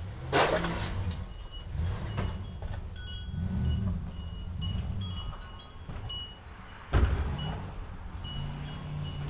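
Outdoor ambience picked up by a doorbell camera: a steady low rumble of vehicle traffic with short, light high ringing tones scattered through it. Two brief noisy bursts break in, about half a second in and again about seven seconds in, the second the louder.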